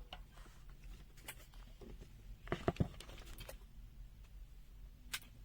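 A few faint, scattered clicks and taps of handling noise, over quiet room tone.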